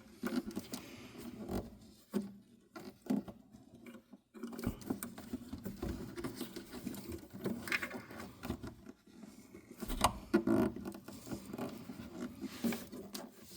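Irregular scraping, rustling and light clicks of hands working a wire and plastic fan-motor parts loose inside a refrigerator.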